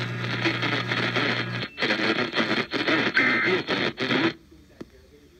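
Weather-warning voice broadcast heard over a radio, with a steady low hum under it for the first second and a half; the voice stops a little past four seconds in, leaving faint hiss.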